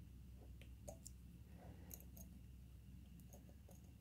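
Near silence under a steady low hum, with a handful of faint, sharp clicks as 18-gauge craft wire and a small hand tool are worked.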